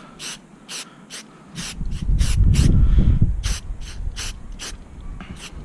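A Rust-Oleum aerosol primer can giving about a dozen short hisses as small parts are spot-sprayed. A low rumble of wind on the microphone comes in about two seconds in and is the loudest sound for a second or so.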